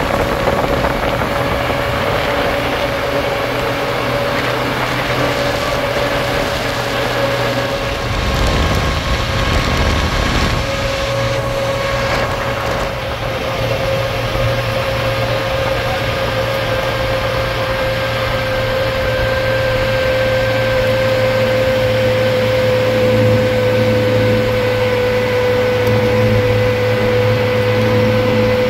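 Motor vehicle engine running steadily, a constant drone with a held whine that sinks slightly in pitch toward the end.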